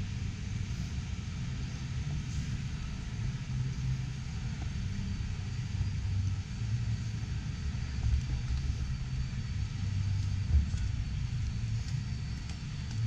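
Steady low rumble of background noise in a large, busy exhibition hall.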